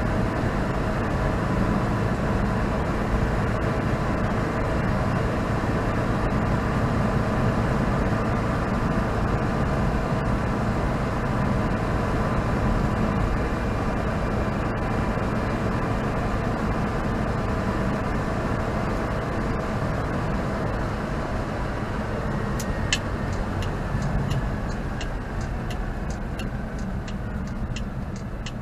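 Citroën 2CV's air-cooled flat-twin engine running as the car drives along, heard from inside the cabin with road noise. Near the end the engine note eases off and a run of quick regular ticks sets in.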